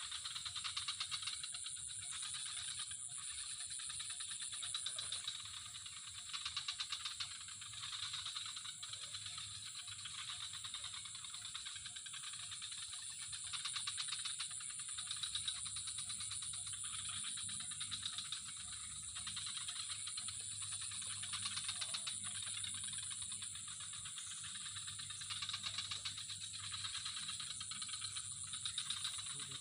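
Dense insect chorus: a steady high shrill over fast, rattling pulsed trills that swell and ease every few seconds.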